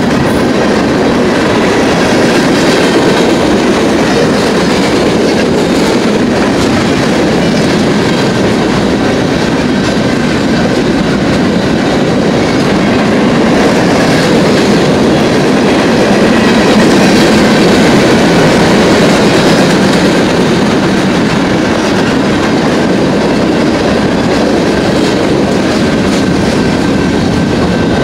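Freight train cars rolling past at close range: a steady, loud rumble of steel wheels on rail with faint high-pitched wheel tones.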